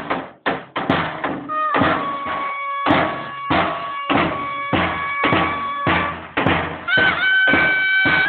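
Clarinet and davul drum playing Turkish village folk music: the davul beats steadily about twice a second while the clarinet holds long notes, stepping up to a higher held note near the end.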